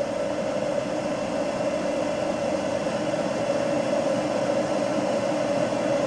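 Steady hum and hiss of background noise, even throughout, with no distinct clicks or knocks from the nut and washer going on.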